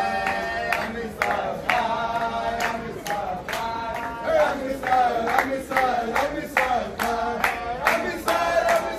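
Group of Hasidic men and boys singing a dance song together while clapping in time, about two claps a second.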